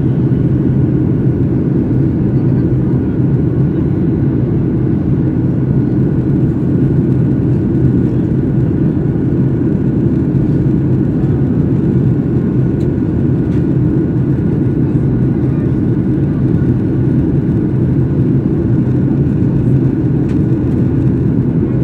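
Steady, loud cabin drone inside a Boeing 737-800 in descent: a low hum from its CFM56 engines under the rush of air past the fuselage, with a faint steady high whine.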